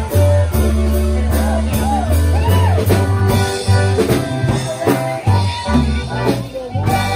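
A band playing an upbeat rock song: a steady drum beat, a bass line and a singer's voice sliding between notes.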